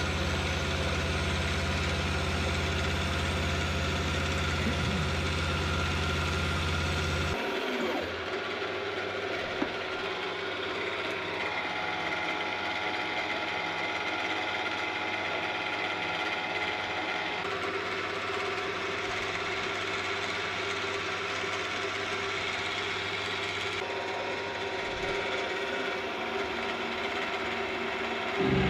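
A ZX7045 mill-drill running while a roughing end mill cuts a notch in steel box section, making a steady machine hum with the whine of the cut. About seven seconds in, the deep low hum drops away suddenly, leaving the higher whine. The low hum comes back just before the end.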